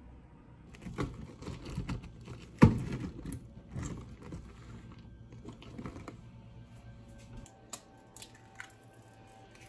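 Kitchen handling noises: a run of clicks and knocks, one sharp knock about a third of the way in, with a plastic bag rustling, then fainter scattered ticks.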